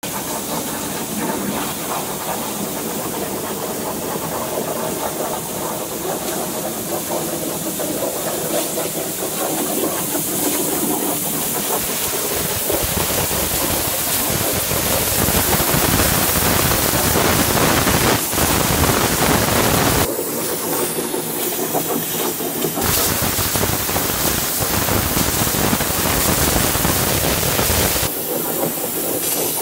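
Gantry CNC plasma cutter's torch cutting steel plate: a steady hissing arc that gets louder about halfway through, with its low rumble dropping out briefly twice near the end.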